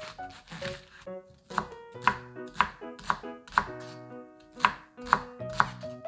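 Chef's knife slicing a green onion on a bamboo cutting board, each cut ending in a sharp knock of the blade on the board, about two a second. Light background music plays underneath.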